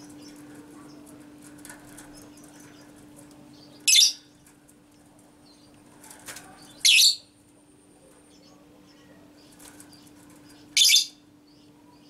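A caged Fischer's lovebird beating its wings in three short, loud flurries, about three and four seconds apart, with faint chirps between them.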